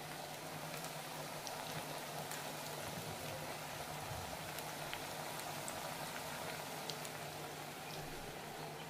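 Pakoras deep-frying in hot oil in an iron kadai: a steady sizzle with a few faint crackles and pops.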